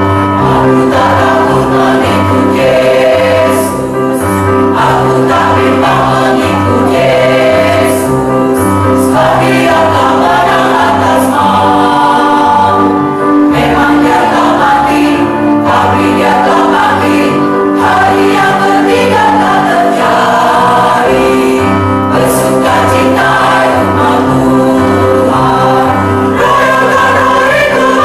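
Mixed church choir of men and women singing together, over low sustained accompaniment notes that step from chord to chord.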